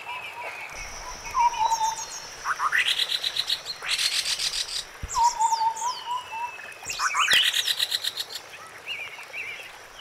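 White-browed scimitar babbler calling: short, low, fluty hoots, each answered by a burst of fast, high, rattling chatter. The exchange comes twice, about four seconds apart.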